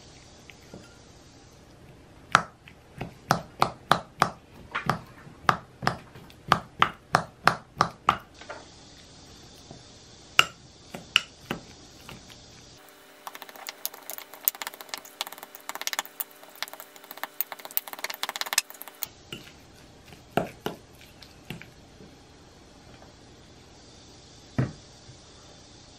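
Metal fork tapping and scraping against a small glass bowl while avocado is mashed. First comes a run of regular taps, two or three a second. Then a stretch of quick, dense clinking and scraping, and a few single taps near the end.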